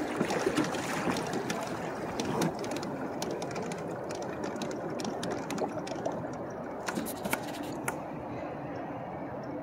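Water rushing and splashing along the hull of a Hobie Pro Angler 360 fishing kayak moving under pedal drive, with scattered light clicks.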